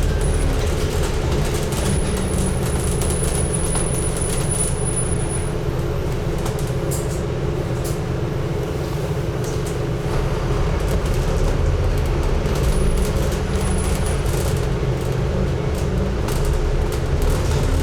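Scania N250UD double-decker bus under way, heard from the front of the passenger deck: its diesel engine runs steadily, with rattles and clicks from the body. A thin high whine sounds for a few seconds near the start, and the engine note rises near the end.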